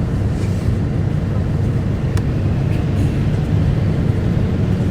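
Isuzu Erga (QKG-KV290N1) city bus heard from inside the cabin: a steady low diesel engine and road rumble, with a single sharp click about two seconds in.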